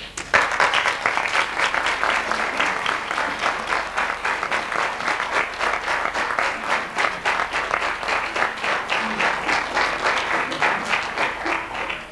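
Theatre audience applauding, the claps falling into a steady rhythm of about four a second. The applause starts suddenly and stops abruptly near the end.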